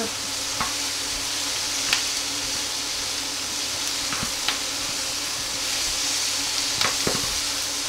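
Diced onion and peppers sizzling steadily as they fry in oil in a frying pan, turned over with metal tongs that click against the pan a few times.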